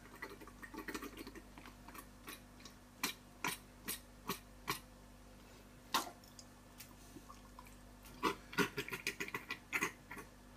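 Faint handling noises as leftover cooked meat is pried loose by hand and dropped into a stainless steel stockpot: scattered taps and clicks, a few sharp ones in the middle and a quick run of them over the last couple of seconds.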